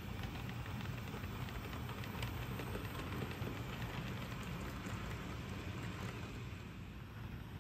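On30 model steam train with log cars running along the layout track: a steady low hum with light scattered clicking from the wheels and rails, easing slightly near the end as it passes.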